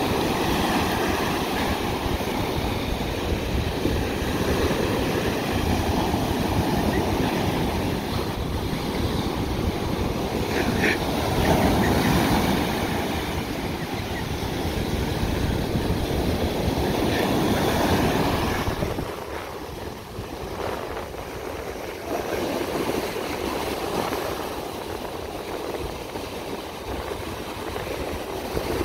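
Ocean surf: waves breaking and foam washing up the beach in a steady rush, easing somewhat about two-thirds of the way through.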